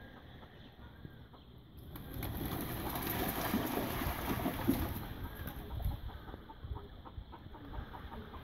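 A flock of ducks and peafowl scattering from a lawn: a flurry of flapping wings starting about two seconds in and lasting about three seconds, with birds calling, then fading.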